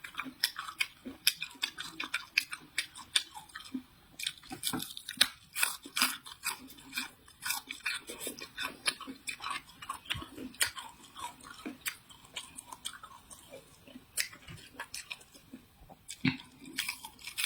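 Close-miked chewing and biting of stir-fried vegetables, with rapid, irregular crunches several times a second.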